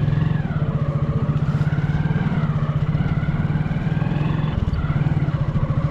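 Motorcycle engine running steadily, its exhaust beating in a fast, even pulse.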